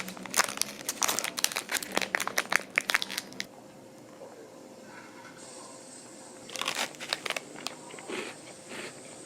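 Crinkling and rustling of something crinkly being handled: a dense run of crackles for about three and a half seconds, a lull, then a shorter burst a few seconds later.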